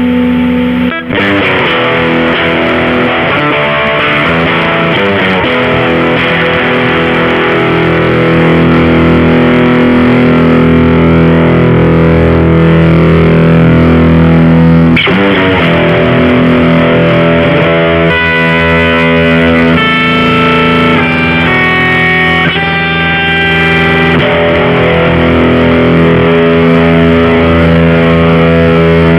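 Electric guitar played through a JOYO Deluxe Crunch overdrive pedal: distorted chords left to ring, struck again about a second in and again about halfway through, with a run of higher single notes in the second half.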